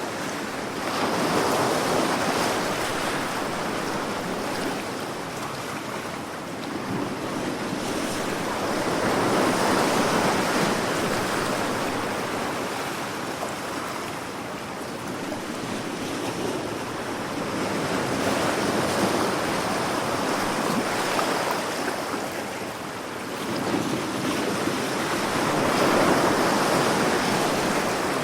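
Sea waves breaking and washing in, the surf swelling and easing four times, about every eight seconds.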